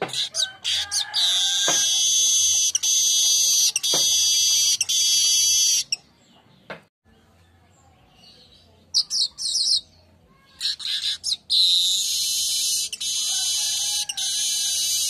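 Manyar (weaver bird) singing twice, with a quiet gap of a few seconds between. Each song opens with a few quick chattering notes and runs into a long, high, wheezing buzz that cuts off abruptly.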